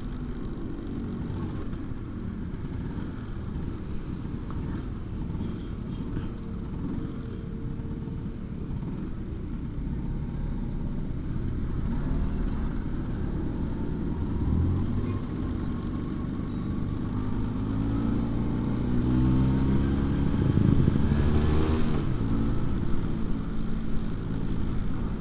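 1985 Vespa P150S's single-cylinder two-stroke engine running under way, mixed with wind and traffic, its pitch climbing as it accelerates about three-quarters of the way through. It runs slightly rough and sputtering, which the rider puts down to a clogged jet in the dirty carburettor.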